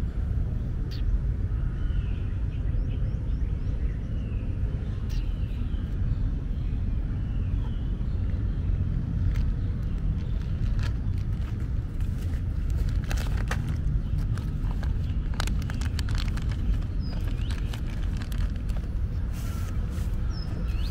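Steady low outdoor rumble, with faint short high chirps in the first few seconds and scattered light clicks from about halfway through.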